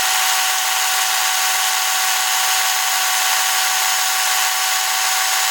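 ReliaRoads 40V battery chainsaw running at a steady full speed: an even electric-motor whine with chain noise over it, holding one pitch throughout.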